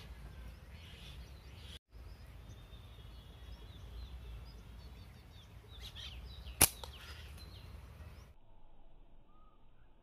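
Outdoor ambience of a steady low rumble and faint bird chirps. About two-thirds of the way in comes a single sharp, loud snap of a slingshot shot.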